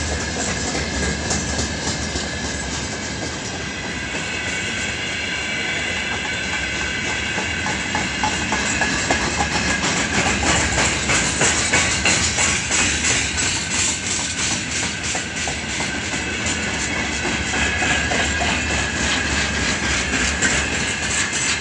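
Freight train of gondola wagons rolling past: a steady rumble and clatter of wheels over the rail joints, with a faint high ringing tone above it. It is loudest about halfway through.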